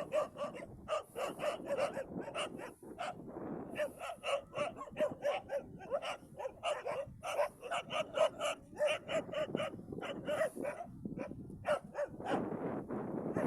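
Stray dogs barking in rapid, repeated strings of barks, several a second, with two short breaks. This is the barking of a pack attacking donkeys.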